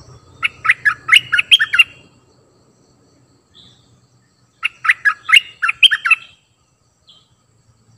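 Caged decoy bulbul singing two quick phrases of about seven rapid notes each, a little under three seconds apart, with a faint single note after each.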